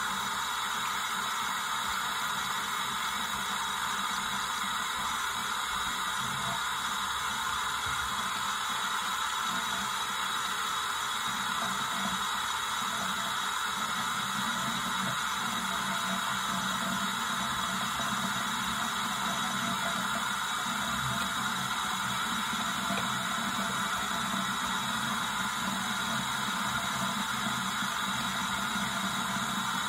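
Bathroom sink faucet running a thin, steady stream of water into the basin.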